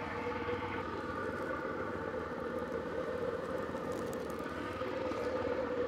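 Steady mechanical hum with several held tones, unchanging throughout.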